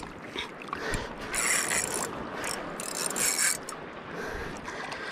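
Heavy spinning fishing reel buzzing mechanically in two short bursts, about a second apart, while it works against a big hooked fish pulling on the bent rod.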